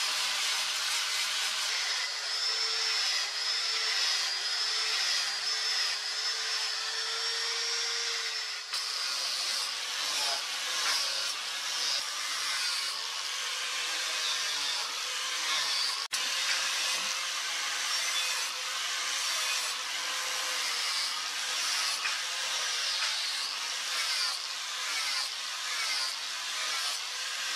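Angle grinder running with an abrasive disc pressed against the steel blade of a meat cleaver, grinding the blade's flat. A steady motor whine over the hiss of abrasive on steel, the pitch wavering slightly as the pressure changes, with a brief break about halfway through.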